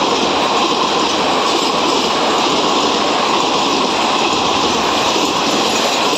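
Passenger coaches of a superfast express train running through a station at speed without stopping: a loud, steady rushing noise of wheels on rail and moving air.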